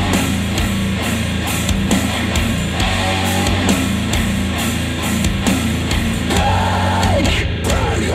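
Heavy rock song playing through a pair of KEF R3 bookshelf speakers.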